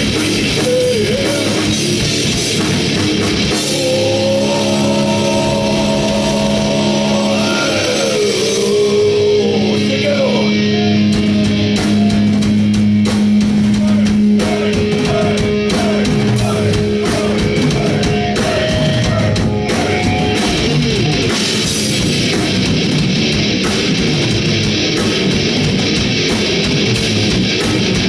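Heavy metal band playing live: drums and electric guitars. Held high notes slide down in pitch about eight seconds in.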